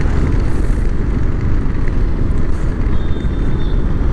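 Royal Enfield Thunderbird motorcycle ridden at road speed: a steady low rumble of wind on the rider's microphone over the single-cylinder engine.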